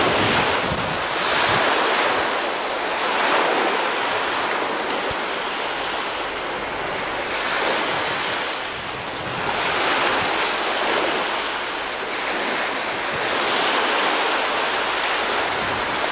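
Sea waves washing onto a shingle beach, a steady hiss that swells and fades every few seconds.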